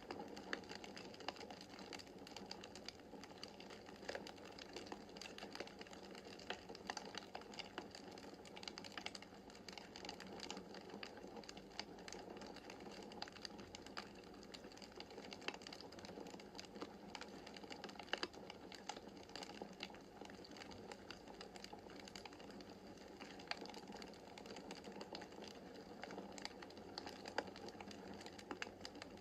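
Wood fire crackling in a fireplace: frequent small, sharp, irregular pops and snaps over a soft steady hiss of the flames.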